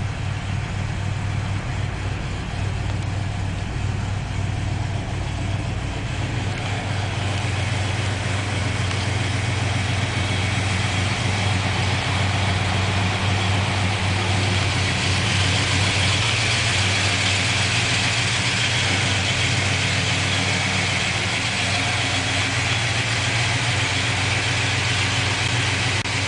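Plymouth 318 Poly V8, freshly installed, idling steadily. Its higher-pitched part grows louder about halfway through.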